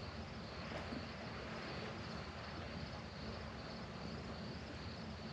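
Faint, steady chirring of crickets at night over a low even hiss.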